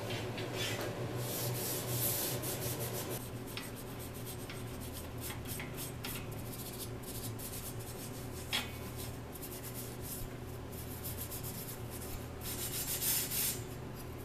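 A rag rubbing a finish onto a steel table frame in quick scratchy strokes, over a steady low hum, with a sharp click about eight and a half seconds in.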